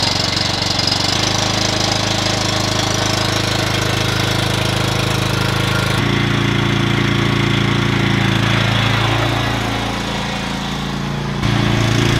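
Cub Cadet riding mower's engine running steadily. Its note changes abruptly about halfway through, drops a little quieter near the end, then comes back up just before the end.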